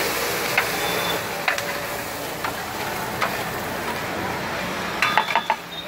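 Egg and masala mixture sizzling on a large flat griddle, with a metal spatula now and then scraping and clacking on the plate, and a quick run of clacks near the end.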